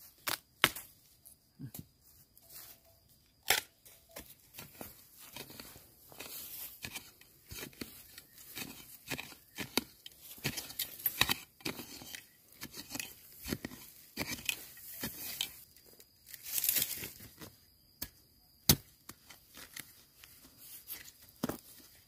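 Crackling, rustling and tearing of dry bamboo litter and shoot sheaths, with a few sharp snaps, as young bamboo shoots are found and broken off by hand. The crackling is densest through the middle.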